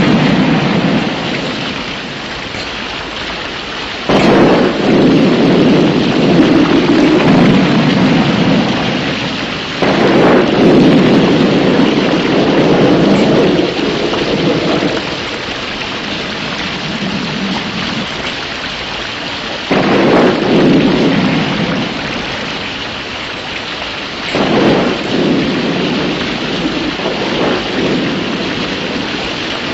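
Thunderstorm: steady rain with four rolls of thunder. Each starts suddenly, about four seconds in, near ten seconds, near twenty and again a few seconds later, then rumbles for several seconds and dies away.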